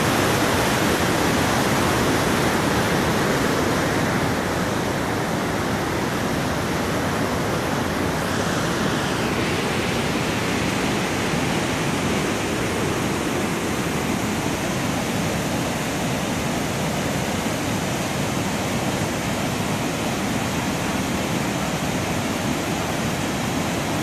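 Muddy floodwater pouring fast over the rock ledges and rapids of a waterfall, a steady, even rush of water. The river is swollen by a flash flood.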